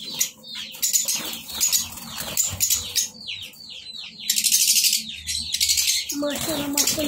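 Many small aviary birds chirping in rapid short, downward-sweeping calls, with a dense burst of harsh chatter about four seconds in.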